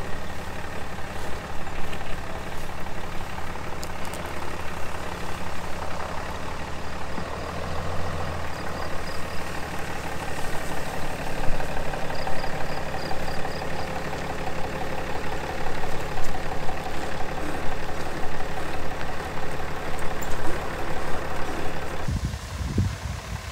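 Pickup truck engine running slowly and steadily as the truck, loaded with a camper, crawls along a rough dirt track. Near the end the sound changes to low gusts of wind buffeting the microphone.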